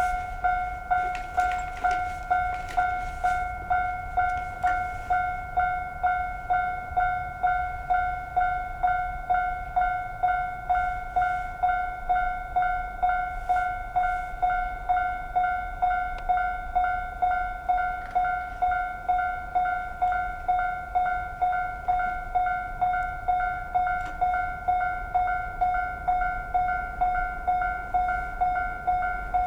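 Japanese railway level-crossing alarm ringing: one electronic bell tone repeating at an even, quick pace, with a low rumble beneath.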